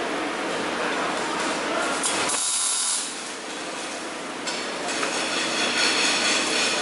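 Electric welding arc crackling and hissing steadily, briefly breaking to a higher hiss for about half a second a little over two seconds in.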